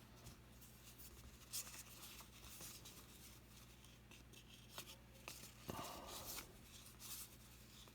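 Faint rustling and light clicks of trading cards being handled and flipped through, with a slightly longer rustle about six seconds in, over a low steady hum.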